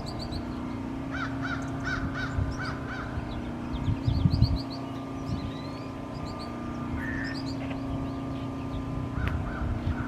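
Birds calling: a run of short, harsh repeated calls, then scattered calls again about four seconds in and near the end, over a steady low hum. There is a brief low rumble about four seconds in.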